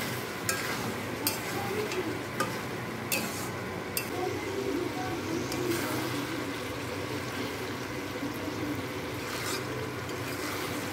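A spatula stirring and scraping chicken pieces through thick masala in a metal kadai, with the steady sizzle of the chicken frying in the spices. Several sharp clicks of the spatula against the pan fall in the first few seconds and one more near the end.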